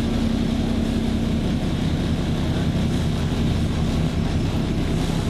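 Steady rumble of a vehicle driving on a wet road, heard from inside the cabin. A steady engine hum fades out about a second and a half in and returns near the end.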